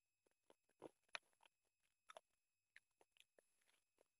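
Faint, irregular wet clicks and smacks of a person eating chicken curry and rice by hand: chewing and the squelch of curry-soaked rice between the fingers.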